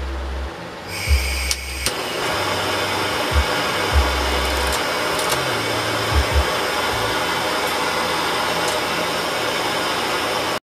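Handheld gas torch lit about a second in, with a couple of sharp clicks, then its flame hissing steadily as glass rods are heated for beads. Low knocks of handling at the bench come through now and then, and the hiss cuts off suddenly near the end.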